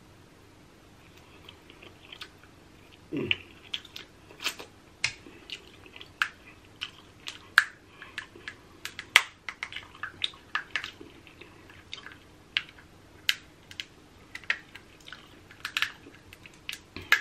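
Crab legs being eaten close to the microphone: irregular sharp clicks and cracks with wet chewing and smacking, starting about a second and a half in.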